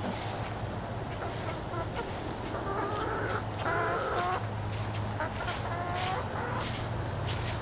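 Chickens clucking, with a few short calls through the middle, over a steady low hum.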